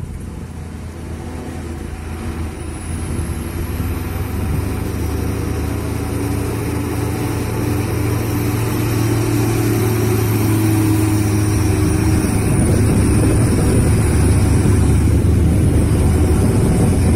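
Heavy truck engines running as trucks work through a steep bend, the low rumble growing steadily louder as a dump truck comes close.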